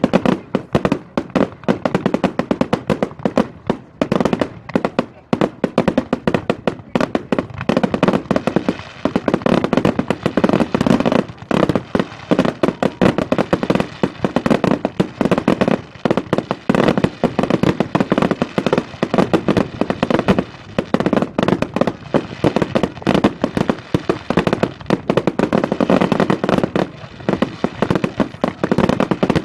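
Fireworks display in a continuous rapid barrage: many sharp bangs and cracks a second, with no let-up.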